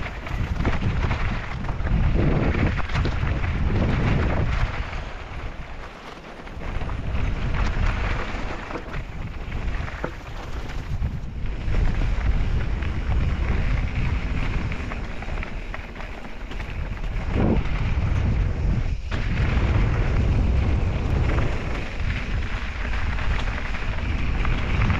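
Wind buffeting the GoPro's microphone over the rolling rumble of mountain-bike tyres on loose gravel and rock, with the bike rattling and a few sharp knocks from rocks or the suspension. It eases off briefly about six seconds in.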